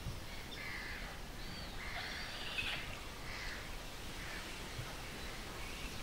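Scattered short bird calls, several in the first few seconds and fewer towards the end, over a steady outdoor background hiss.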